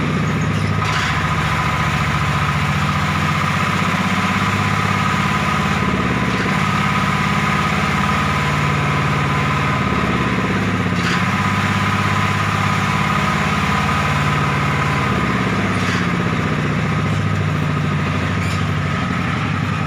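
Diesel engine of a homemade ledok dump truck idling steadily, with a steady high whine over its low hum.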